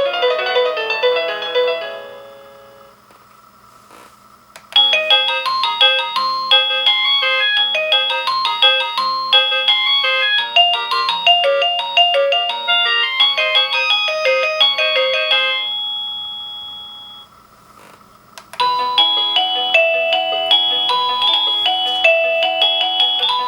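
Avantek D-3B wireless doorbell receiver playing its electronic chime melodies one after another: a tune fades out, a click about four seconds in brings on a new tune of quick notes that runs for about eleven seconds and fades, and a second click starts another tune near the end.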